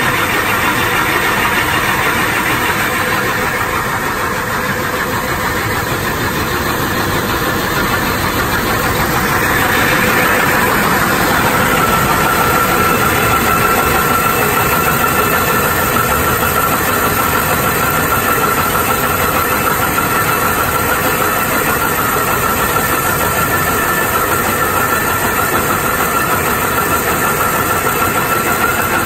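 Yongwon SP300 Super Cone crusher (medium type) running at 1050 rpm while crushing gravel fed in through its chute: a loud, steady mechanical din. A steady whine comes in about eleven seconds in and holds.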